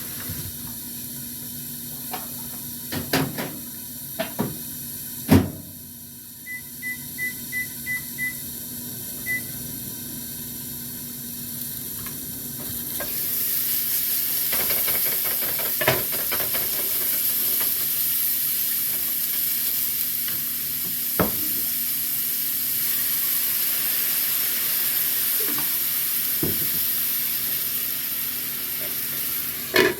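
A few sharp knocks and a quick run of short electronic beeps, like an appliance keypad, then from about 13 s in a steady sizzle of food frying in a pan.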